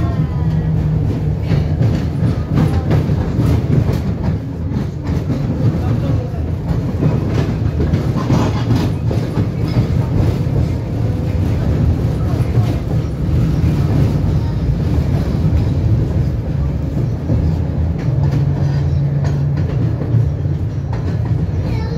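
Inside a moving 71-605 (KTM-5M3) tram: a steady low rumble of the wheels and running gear on the rails, with frequent clicks and knocks from the car. A low hum swells briefly near the start and again late on.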